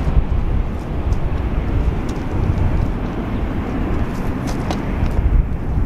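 Boeing 737-400 airliner's CFM56 turbofan engines heard on final approach and touchdown: a steady, deep rumble with a few faint ticks about four to five seconds in.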